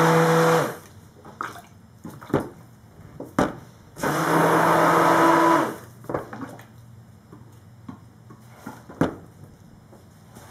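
Handheld stick blender running in two short bursts to mix colourant into soap batter in a plastic cup: the first cuts off under a second in, the second runs for about two seconds from about four seconds in. A few light knocks come in between.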